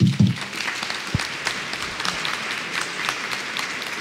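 Audience applauding, breaking out all at once into many hands clapping.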